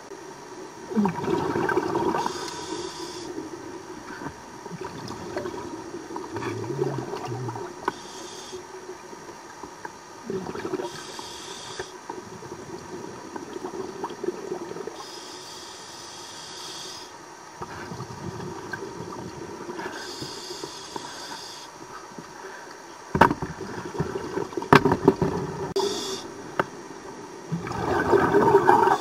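Scuba diver breathing through a regulator underwater: a short hiss on each inhale every few seconds and a burbling rush of exhaled bubbles. A few sharp knocks come about two-thirds of the way through.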